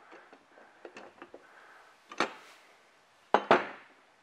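Metal parts of a hand-crank winch unit clicking lightly as its spool is taken out of the housing, with a sharper knock about two seconds in and two louder knocks near the end as the spool is set down on the table.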